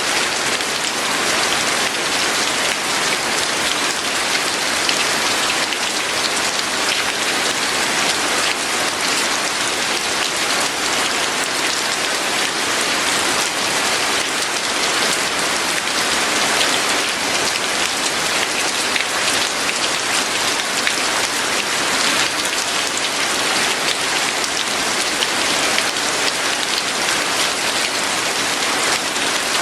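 Steady, heavy rain falling, a dense even hiss of drops on surfaces.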